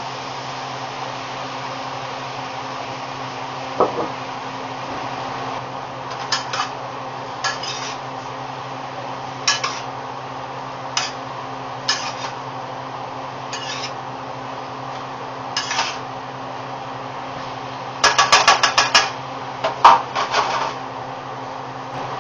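Metal spoon knocking and scraping against a metal sauté pan while stirring, a single clink every second or two. Near the end, a quick rattle of clanks as the pan is shaken and tossed, followed by a few more knocks, over a steady background hiss and hum.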